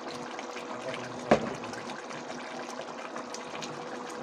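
Pot of minced beef curry simmering, with a steady bubbling hiss and a faint steady whine under it. One sharp knock about a second in.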